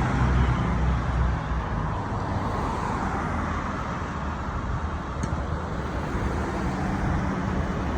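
Road traffic: a passing vehicle's low engine hum fades out over about the first second and a half, leaving steady traffic noise. No horn sounds.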